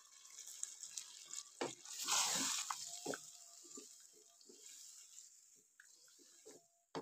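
Hot water poured from a plate into a pot of meat and spice masala, splashing loudest about two seconds in, then a wooden spoon stirring the watery stew with soft sloshes and knocks that fade toward the end.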